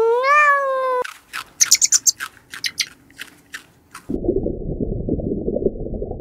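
A cat's meow trails off about a second in. It is followed by a quick series of short, high chirps and clicks, then from about four seconds in a steady, dense low noise.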